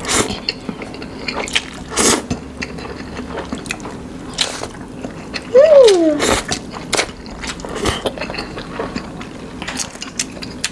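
Close-miked mouth sounds of a man eating saucy instant noodles: a run of wet slurps, smacks and clicks. A little past halfway comes a short sound that falls in pitch, the loudest moment.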